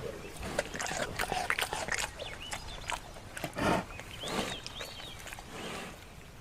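A bear's sounds: a quick run of clicks and snaps over the first couple of seconds, then three short breathy huffs.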